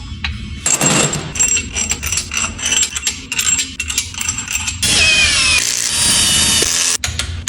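Workshop power tool running in a rapid mechanical clatter with a high steady whine, then about two seconds of loud hissing with falling whines before it stops abruptly near the end.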